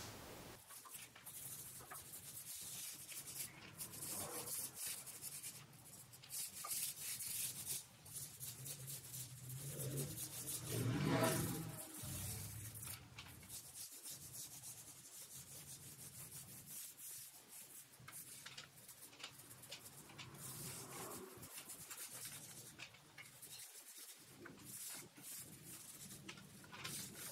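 Small foam paint roller rubbed in soft, irregular strokes along a wooden bed frame, applying paint. About ten seconds in, a louder low hum swells for a couple of seconds and stops.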